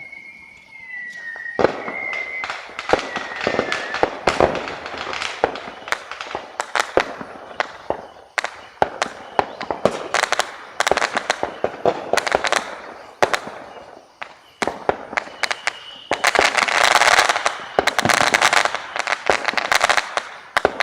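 Fireworks going off: a rapid, irregular run of bangs and crackling pops. A whistle falls slightly in pitch over the first few seconds, and a dense stretch of crackling comes near the end.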